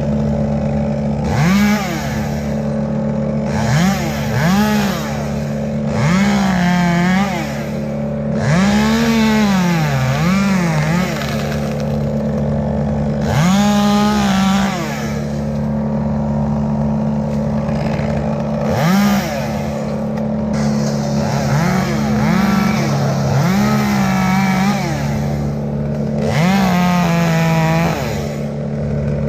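A chainsaw revving up again and again, about ten times, its pitch rising, wavering under load and falling back to idle between cuts. Under it runs a steady engine drone that never changes.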